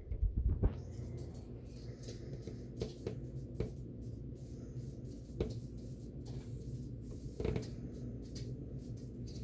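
A steady low hum with scattered small clicks, and a few louder soft knocks in the first second.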